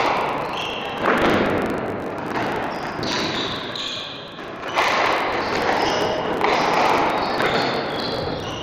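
Squash balls thudding against court walls, several sharp impacts echoing in a large hall: one at the start, another about a second in, and one near the middle.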